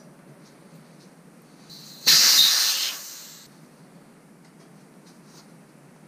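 Air hissing out of a bicycle tire's valve for about a second and a half, loud at first and then tapering away. It is the tire being deflated so it can be levered off the rim.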